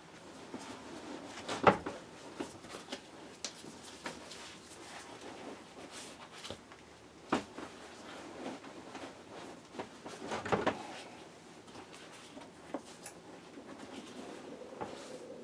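Parts being handled and fitted during car seat reassembly: scattered clicks and knocks of plastic and metal, the loudest about two seconds in, again near the middle, and around ten seconds in.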